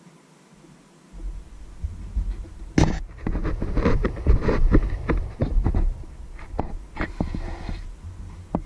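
Camera handling noise as a hand grips and repositions the camera: low rumbling and rubbing with a run of knocks and clicks, the sharpest about three seconds in, settling down near the end.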